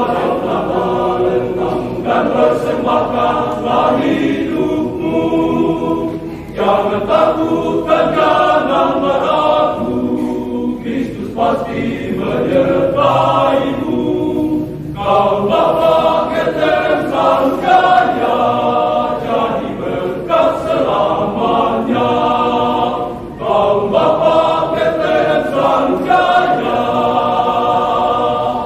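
Men's choir singing under a conductor, the sung phrases separated by short breaks.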